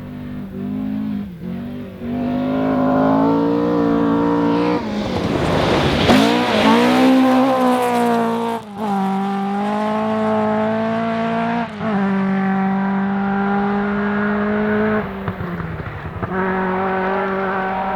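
Historic rally car at full throttle, passing and pulling away. The engine note breaks sharply with an upshift about four times, each gear held at a steady high pitch.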